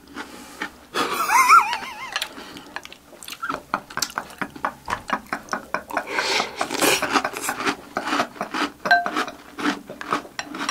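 Wooden spoons clicking and scraping against glass bowls of chocolate cereal in milk, with crunchy chewing, and laughter breaking in now and then.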